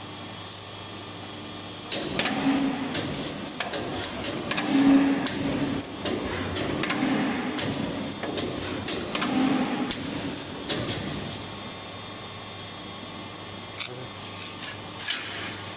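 CNC hydraulic pipe punching machine working on rectangular pipe: a steady hum, with a run of clanks and knocks in about four louder cycles roughly every two and a half seconds, then back to the hum alone.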